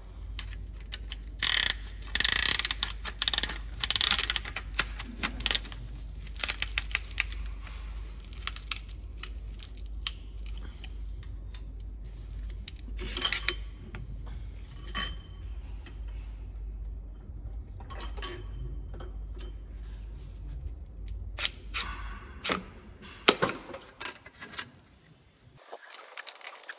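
Metal engine parts and tools clinking and knocking as pistons with their rings are handled for installation in a truck diesel. A quick run of sharp clatters comes in the first few seconds, then scattered clinks, over a low steady hum that stops shortly before the end.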